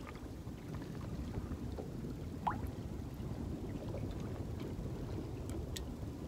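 Steady low rumble of wind and water around an open fishing boat, with one short squeak about two and a half seconds in.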